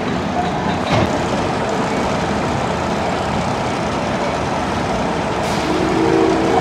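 Mine train roller coaster train rolling along its track, a steady rumble with a click about a second in. A steady pitched tone comes in near the end.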